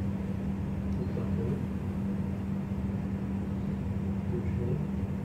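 A steady low hum with one strong constant tone, over continuous background noise.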